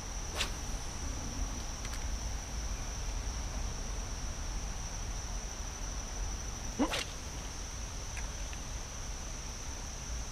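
Steady high-pitched chorus of insects such as crickets, with a low rumble underneath. Two brief sharp sounds cut through it, the louder one about seven seconds in.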